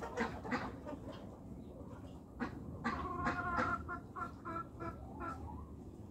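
Chickens clucking in short, sharp calls, with a longer held call about three seconds in.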